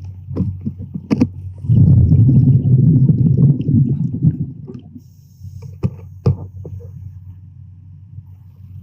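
Underwater sound picked up by a camera in a housing: a low rumbling, gurgling rush lasting about three seconds, with a few sharp clicks before and after it.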